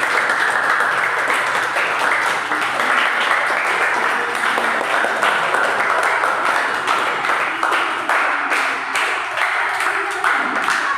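Many hands clapping steadily and quickly, a sustained round of clapping to set off a sound-activated light display.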